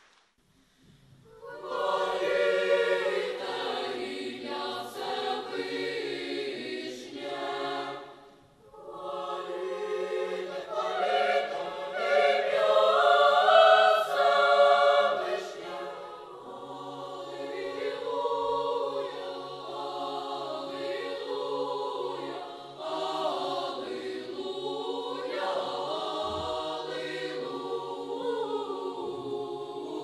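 Girls' choir singing a sacred hymn in several parts. The singing begins about a second and a half in, breaks off briefly after about eight seconds, then carries on.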